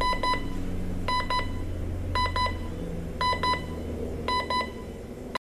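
Emerson CKS1702 clock radio's alarm beeping: quick bursts of short high beeps, repeating about once a second, cutting off suddenly near the end.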